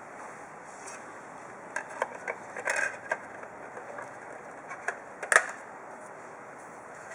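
Short plastic clicks and taps as a DVD is laid onto the open tray of a slim external DVD burner and pressed down onto the spindle hub: one cluster about two to three seconds in, another about five seconds in, with the loudest click there.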